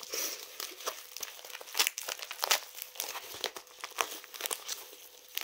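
Red metallic plastic bubble mailer crinkling and crackling in irregular bursts as it is handled and opened by hand.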